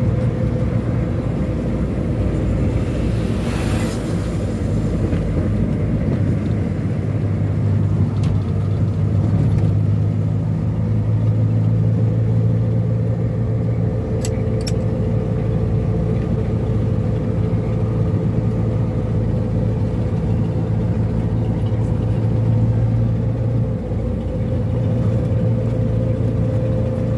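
A 1971 Ford Corcel's four-cylinder engine running steadily while the car is driven, with a low, even hum. About four seconds in there is a short rush of noise, and later a couple of light clicks. The engine note drops near the end.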